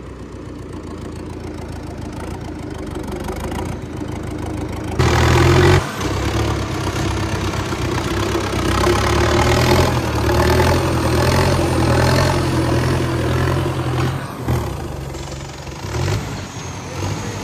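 Indo Farm tractor's diesel engine running, its revs raised sharply about five seconds in and held for about nine seconds before dropping back toward idle, as the tractor is manoeuvred to hitch a trolley.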